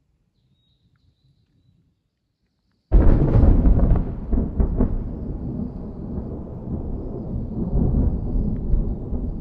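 Thunder: a loud clap about three seconds in, after near silence, then a long uneven rumble that slowly falls away.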